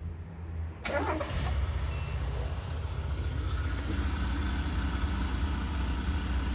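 A Mazda E2000 van's carburetted, LPG-converted four-cylinder engine starts about a second in, then idles steadily. It runs with a slight roughness, which the mechanic thinks may be an exhaust leak.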